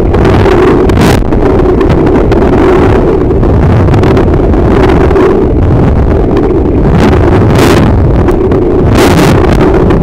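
Loud, muffled underwater water noise picked up by a camera in its housing while snorkeling: a steady low rumble and hum, with a few brief hissing splashes.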